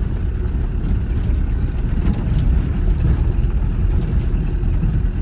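Steady low rumble of a car's engine and tyres rolling slowly over a gravel track, heard from inside the cabin.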